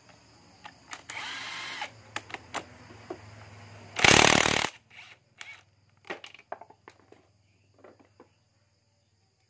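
Cordless impact wrench on the magneto rotor nut of a Kawasaki Rouser LS135 engine. There is a short whir about a second in, then a loud burst of hammering just after four seconds as it spins the nut loose. Light metallic clinks follow as the nut and rotor are handled.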